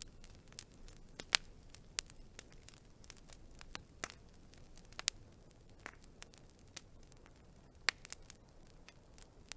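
Wood fire crackling: irregular sharp snaps and pops from the burning logs over a faint low hiss, with two louder pops, one about a second in and one near the end.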